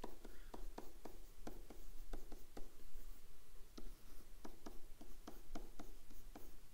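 Stylus writing on a tablet screen: a string of light, irregular tapping clicks, several a second, as an equation is handwritten.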